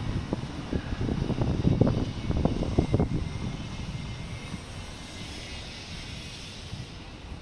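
Strong wind buffeting the microphone in gusts, a jagged rumble that eases after about three seconds to a softer steady rush.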